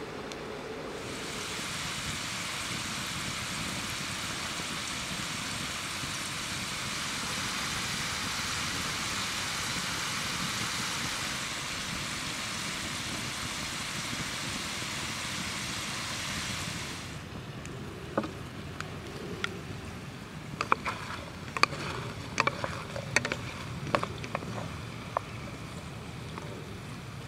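Potato fries deep-frying in hot oil in a cast iron pan over a campfire: a steady, dense sizzle that cuts off about 17 seconds in. After that come scattered sharp clicks and taps of wooden tongs against the pan and fries, over a low rush of flowing river water.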